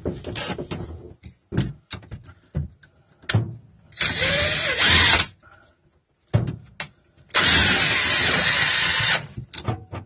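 Drill spinning a roto brush inside a flexible foil dryer vent line in two bursts, about one and two seconds long, while the brush is stuck in the line. Between the bursts there are scattered knocks and rattles from handling the duct and brush rod.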